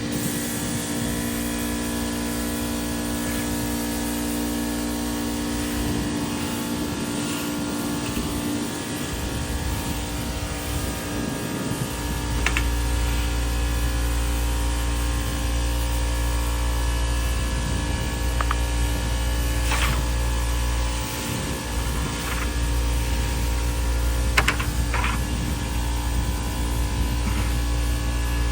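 A motor-driven machine running steadily with a humming drone; its low drone grows louder about twelve seconds in, and a few sharp clicks or knocks sound over it.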